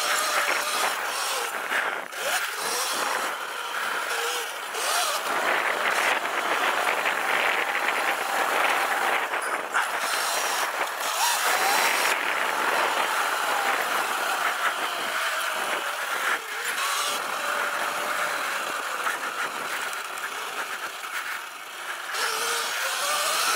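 Sur-Ron Light Bee electric dirt bike with a KO Moto Factory Spec motor and controller being ridden hard off-road. The electric motor's whine rises and falls in pitch again and again with the throttle and speed, over a steady rushing noise.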